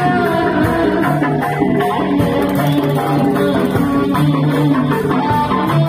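Loud music played through a street loudspeaker stack, led by a plucked-string melody over a steady repeating bass note.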